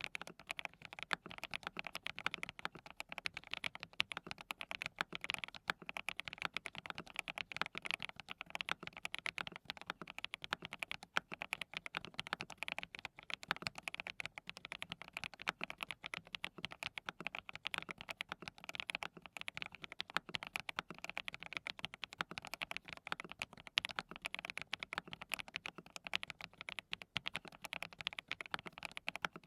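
Continuous rapid typing on a DT35 87-key custom mechanical keyboard fitted with hand-lubricated Qsenn Apple Mint V1 linear switches: a steady stream of keystrokes.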